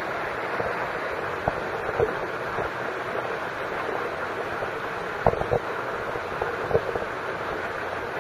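Steady rushing water noise around a pool, with a few faint short splashes as a pig swims.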